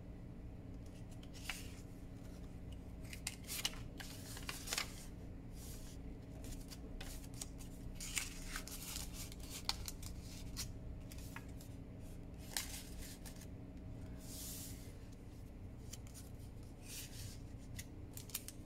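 Paper rustling and crinkling in short irregular bursts as a parchment baking-cup envelope is handled and the paper cards and tags inside it are slid out.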